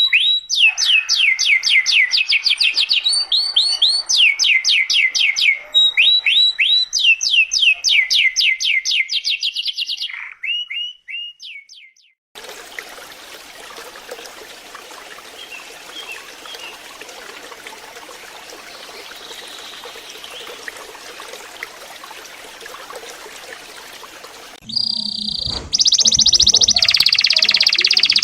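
Domestic canary singing rapid trills of quickly repeated high notes. The song breaks off about ten seconds in. A stretch of faint hiss follows, and the song resumes loudly a few seconds before the end.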